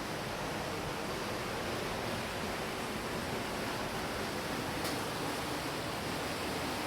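Steady, even rushing noise that does not change, with one faint click about five seconds in.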